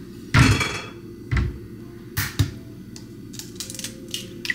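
Kitchen prep sounds: a short rustle of a package being handled, then a few knocks of things set down on the countertop. Near the end come light taps and clicks as an egg is cracked over a ceramic bowl.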